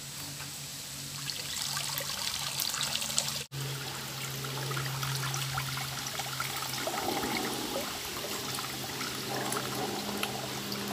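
Water pouring and dribbling from a pot through a plastic colander and splashing onto wet rocks as boiled beef is drained, with small splashes and drips.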